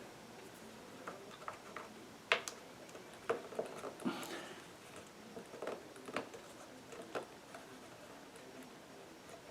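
Light, irregular clicks and taps of a bearing and wooden parts being handled as the bearing is worked into its seat in a wooden scroll saw's drive train.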